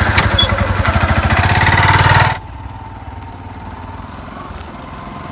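Sport motorcycle engine revving close by, getting louder for about two seconds. It then drops suddenly to a quieter, steady running sound from farther off.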